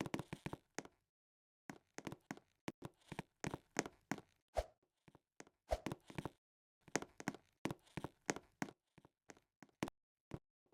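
An irregular run of short taps and knocks, several a second in clusters, with a brief dead-silent gap about a second in.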